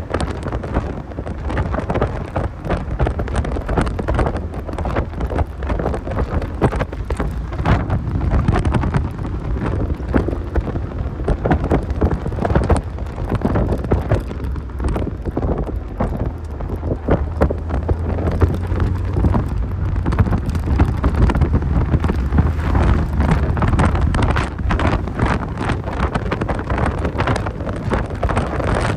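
Heavy wind buffeting on the microphone from a moving 1990 Mazda Miata, with the low drone of its 1.6-litre four-cylinder engine and road noise underneath. The wind crackles and gusts unevenly throughout.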